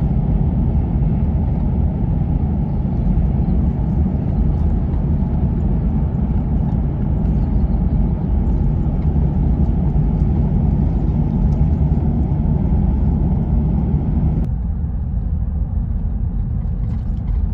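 Car driving along a country highway while towing a caravan, with steady, loud road and engine rumble. About fourteen seconds in, the higher hiss drops away suddenly while the low rumble carries on.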